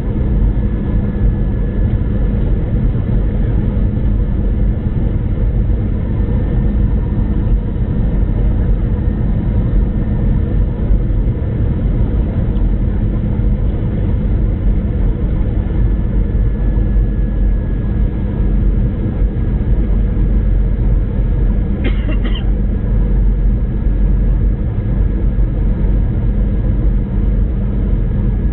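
Steady low cabin rumble of an Airbus A319 in descent, from its engines and the airflow past the fuselage, with a brief click about two-thirds of the way through.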